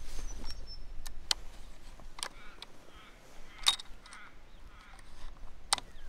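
Five sharp clicks spread through a few seconds, the loudest a little past halfway, over a faint low rumble and a few faint short chirps.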